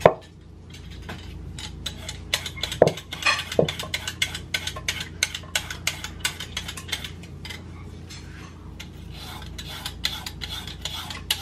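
Vegetable peeler scraping down a raw carrot, shaving it into long strips: quick repeated rasping strokes, several a second. A ceramic bowl knocks down on the counter at the start, and two short ringing clinks on the bowl come about three seconds in.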